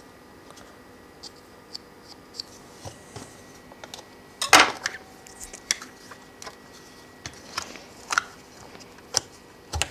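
Scattered clicks and knocks from handling a small plastic pull-through knife sharpener with a suction base as it is set on the table, a knife blade is laid in its slot and the sharpener is pressed down. The loudest is a sharp clack about four and a half seconds in.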